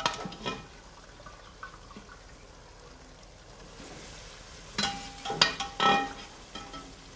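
Metal slotted spoon and ladle clinking and scraping against a steel karahi, with a few ringing clinks at the start and a quick run of them about five to six seconds in, as whole spices are picked out of the chicken masala. The masala sizzles faintly in between.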